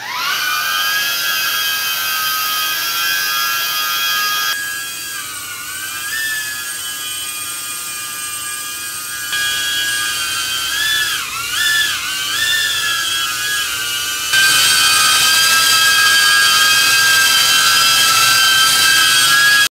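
DJI Avata FPV drone hovering, its ducted propellers giving a loud, steady, high whine. The pitch dips and rises a few times near the middle as the throttle changes. The tone and loudness of the whine shift abruptly a few times as the recording switches between a voice recorder, a phone and a shotgun microphone, loudest in the last few seconds.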